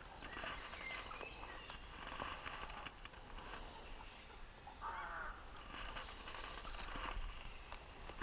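Quiet pondside outdoor ambience with scattered bird calls, a louder, harsher call about five seconds in.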